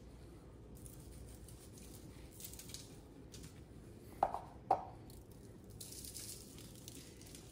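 Quiet hands-on food prep: snapper fillets laid onto aluminium foil with soft handling noises, two sharp taps about half a second apart a little past halfway, then a brief soft hiss of dry seasoning sprinkled over the fish.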